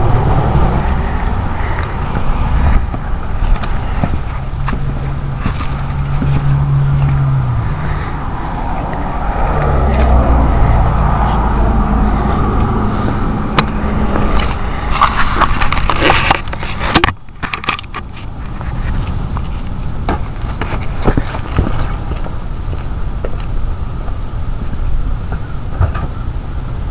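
1997 Ford F250's 7.3 Powerstroke V8 turbo diesel running, its turbocharger whistling over the diesel rumble. A short burst of noise cuts in about two-thirds of the way through.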